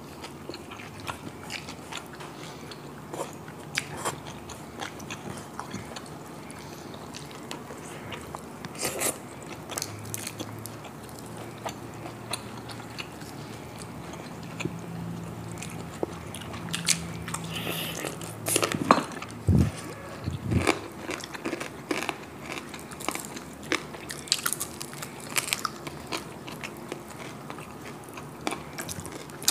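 Close-miked eating: chewing and irregular crunches of crispy fried pork knuckle skin eaten by hand, with wet mouth clicks. The loudest crunches come about two-thirds of the way through.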